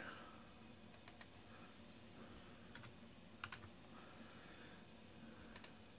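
Near silence broken by a handful of faint, scattered clicks from a computer keyboard and mouse being worked.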